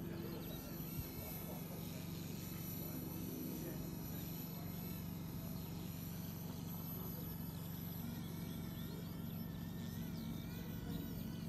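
Small electric RC helicopter in flight: a steady low rotor hum with a faint, higher motor whine that wavers up and down as the throttle changes.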